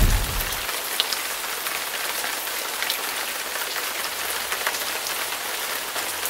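Steady rain, an even hiss with scattered drop ticks; the low rumble of thunder dies away in the first second, and the rain cuts off abruptly at the end.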